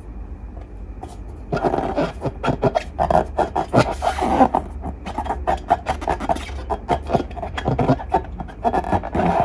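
Slime being squished and stretched by hand: dense, rapid sticky clicks and crackles with rubbing, starting about a second and a half in after a quieter opening.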